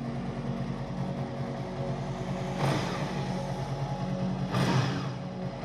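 Honda VFR800's V4 engine idling steadily. The repaired silencer-to-collector-box joint is no longer blowing. A short rush of noise comes twice, about halfway through and again near the end.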